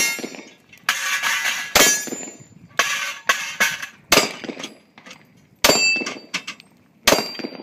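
A handgun fired about six times at a steady pace, a second or so apart, with the steel plate targets clanging and ringing as they are hit.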